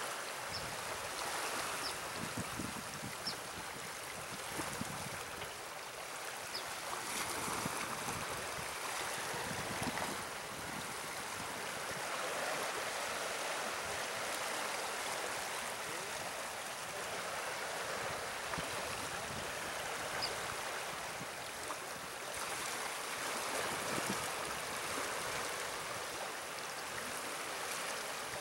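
Water rushing steadily out of concrete canal check gates and churning down the channel, a continuous even roar of flowing water.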